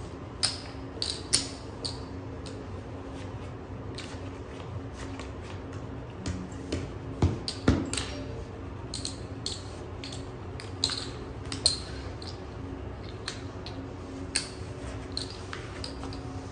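Casino chips clicking and clacking against one another in irregular clusters as bets are handled on a blackjack table, with a few duller knocks about seven seconds in, over a steady low background hum.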